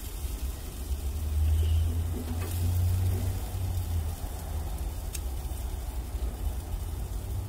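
A low steady rumble that swells about a second and a half in, under a faint sizzle of chicken cooking on an open barbecue grill, with a few light clicks of metal tongs as the pieces are turned.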